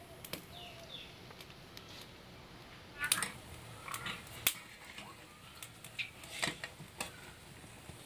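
Metal perforated skimmer clinking and scraping against a metal kadai as fish pakoras are turned and lifted out of the frying oil: a run of light, sharp clinks through the second half. A few short bird chirps near the start.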